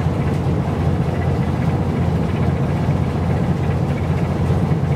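Steady low rumble of a boat's engine running, with wind and water noise over it.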